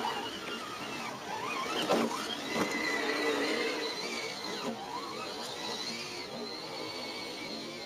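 Radio-controlled scale crawler truck's electric motor and gearbox whining. The pitch dips and climbs sharply a couple of times as the throttle changes.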